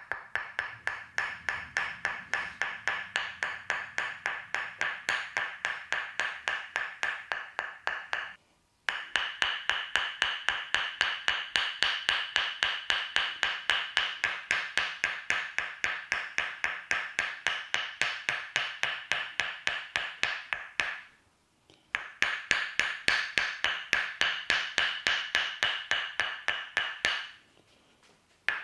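Tok sen massage: a wooden mallet tapping a wooden wedge in rapid, even knocks, about four or five a second, each with a short ringing tone. The tapping breaks off briefly three times.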